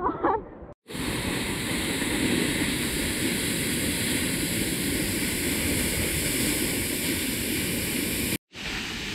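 Steady, even roar of a large waterfall, Birthi Falls. It breaks off for a moment just under a second in and again near the end.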